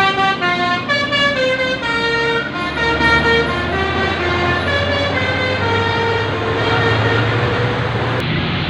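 Bus telolet horn, a multi-tone musical air horn, playing a quick tune of stepped notes that fades after about six seconds, with a vehicle engine running underneath from about two and a half seconds in. The horn stops abruptly near the end.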